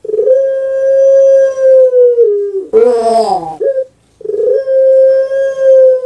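A caged puter pelung (Barbary dove, Streptopelia risoria) cooing. A long steady note of about two seconds is followed by a rough, rolling note that falls in pitch, then a short note. A second long steady note begins about four seconds in.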